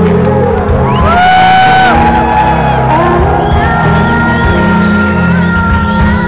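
Live band music in a large hall, with long held notes over a steady low backing, and audience members whooping and cheering over it.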